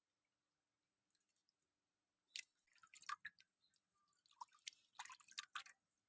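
Faint, scattered wet clicks and squelches, starting a little over two seconds in.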